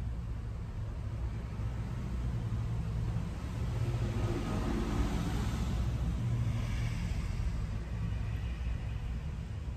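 A vehicle going by: a swell of engine and road noise that builds for about two seconds, peaks midway and fades over the next two, over a steady low rumble.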